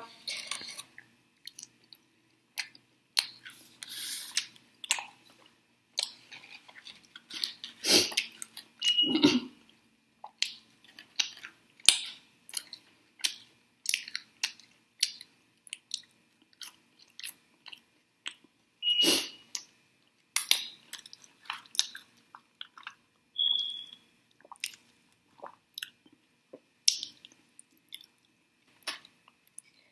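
Close-miked chewing and biting of chicken wings: irregular wet smacks and clicks of the mouth, with a few louder bursts now and then.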